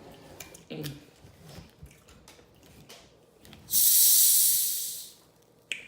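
Carbonated Sprite fizzing in a loud hiss that starts suddenly, holds for about a second and dies away.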